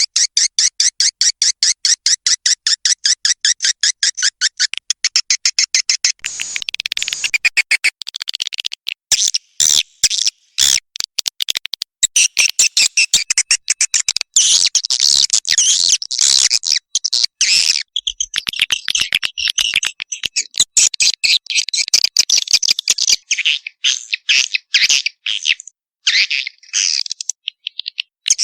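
Swiftlet call track played as a lure for nesting swiftlets: a rapid, even train of short high chirps for about the first six seconds, then denser overlapping twittering with brief gaps.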